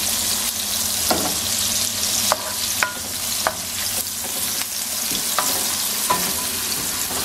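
Chopped onion and garlic sizzling in hot oil in a nonstick frying pan, stirred with a wooden spoon that knocks against the pan several times.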